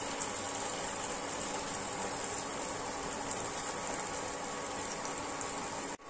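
Battered nendran banana slices deep-frying in hot oil: a steady sizzle with a few small pops.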